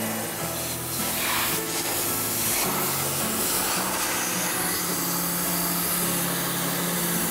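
Pressure washer jet spraying into a boiled deer skull: a loud, steady hiss of water blasting meat and brain matter out through the spinal column hole.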